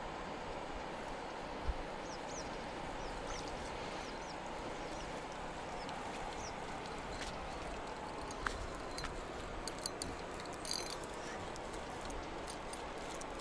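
Steady outdoor background noise with a few faint, short bird chirps in the first half and scattered light clicks later on.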